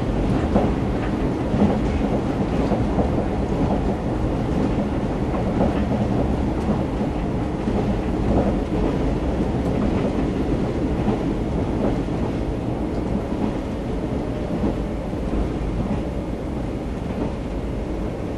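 Cabin noise inside a JR 381 series electric train running at speed: a steady low rumble of wheels on rail, with faint knocks now and then.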